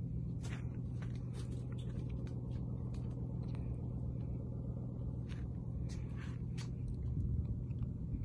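A boat engine running steadily, a low even drone, with scattered light clicks over it.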